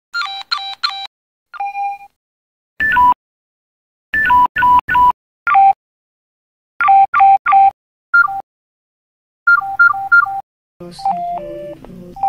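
Nokia mobile phone battery-low alerts played one after another: groups of short electronic beeps, often two-note, separated by silent pauses. Near the end comes a longer alert of tones stepping down in pitch.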